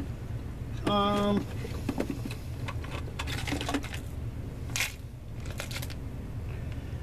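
Light clicks and rattles of small hard objects being handled, typical of a plastic tackle box and loose treble hooks being sorted. A short hummed voice sound about a second in is the loudest moment.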